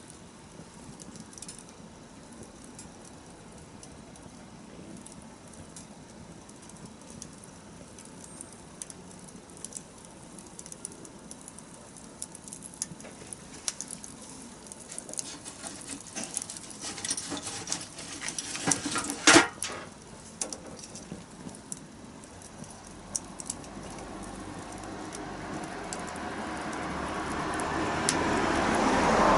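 Wood fire crackling: irregular small snaps throughout, coming thicker about two-thirds of the way in with one loud pop. Near the end a rushing noise swells steadily louder.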